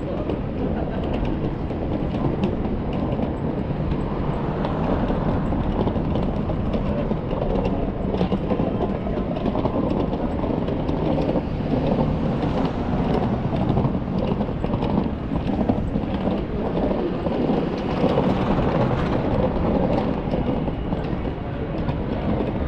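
Steady city-street noise: a continuous low rumble of urban traffic with scattered small clicks and knocks.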